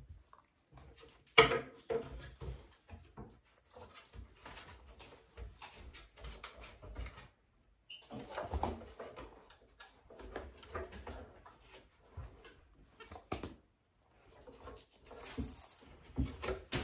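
Monkeys clambering over a wooden bookshelf and toys: scattered knocks, scrapes and rustling, with one loud thump about a second and a half in.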